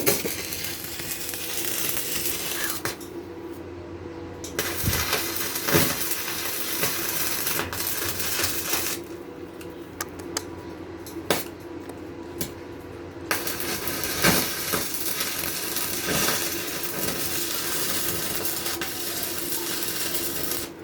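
Steel metalworking at a welding-table build: three long bursts of hissing noise that start and stop, over a constant hum, with sharp metallic clinks and knocks between them.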